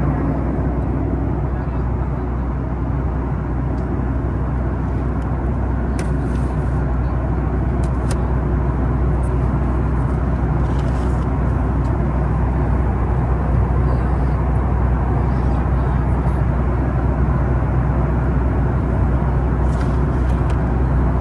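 Steady cabin noise inside a Boeing 737 MAX 9 airliner on approach: the low, even drone of the engines and rushing air, with a couple of faint clicks.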